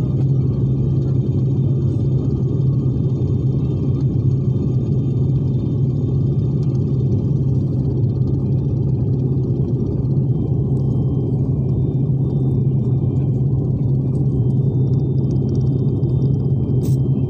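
Steady in-flight cabin noise of a jet airliner: an even, low drone of engines and rushing air with a constant hum underneath.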